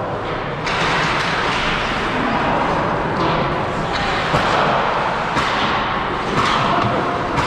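Ice hockey play in a rink: a continuous scraping hiss of skates on ice, broken by sharp clacks and thuds of sticks, puck and boards about once a second.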